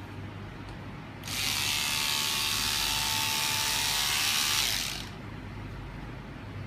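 WBT-1 electric scissors running and cutting through a fabric scarf, a steady motor sound that starts about a second in and stops after about three and a half seconds.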